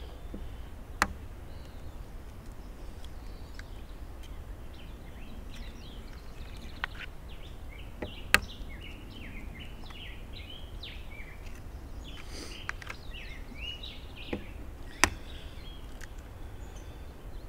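Eggs being cracked one at a time against the rim of a plastic cup: three sharp knocks several seconds apart, with a few softer taps and shell crunches. Small birds chirp throughout, over a steady low background rush.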